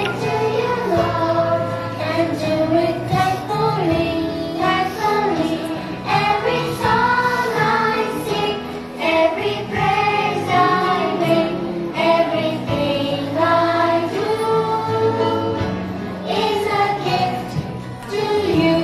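A children's song: young voices singing a melody together over instrumental accompaniment.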